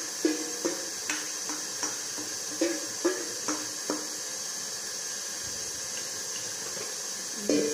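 Stainless steel mixing bowls knocking and clinking against each other, each knock followed by a brief metallic ring. There are about ten knocks in the first four seconds and another cluster near the end, over a steady hiss.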